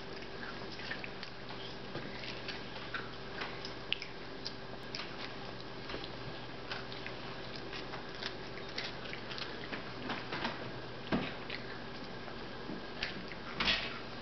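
Toddlers chewing and crunching crackers: irregular faint crackly clicks over a steady low hum, with a couple of louder knocks in the last few seconds.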